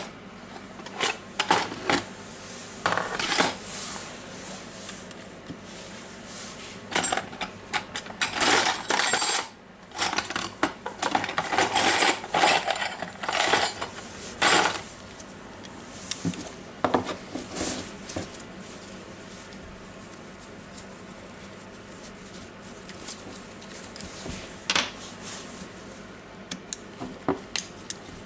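Metal parts and small screws of a cordless impact wrench clinking and clattering as it is taken apart by hand on a bench. Irregular clatter, busiest in the first half, then a quieter stretch with a few clicks near the end.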